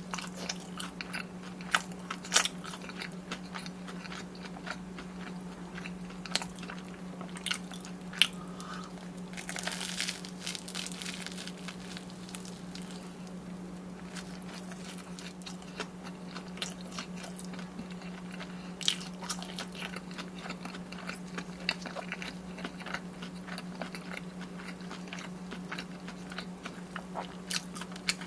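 Close-miked biting and chewing of crunchy deep-fried Korean corn dogs and snacks, with sharp crunches at irregular intervals over wet chewing. A steady low hum runs underneath.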